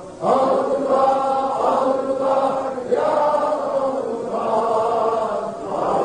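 Sufi vocal dhikr (cehri zikir): male chanting in long, drawn-out phrases of about three seconds each, with brief breaks between them.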